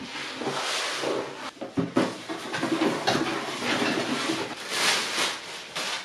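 Cardboard box and plastic packaging rustling and scraping as a box is opened and a white metal mesh basket drawer is unpacked from its wrapping, with a couple of sharp knocks about two seconds in.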